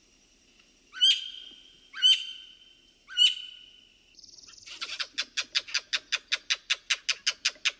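Bird calls: three short, sharp calls about a second apart, then a rapid, even run of notes at about six a second.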